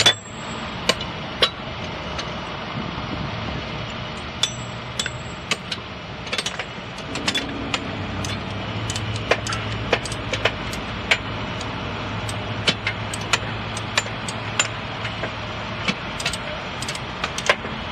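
Hammers striking the steel rail hardware (spikes and tie plates) during railroad tie replacement: sharp, irregular metal clanks, at times several in quick succession. A steady low engine hum runs underneath.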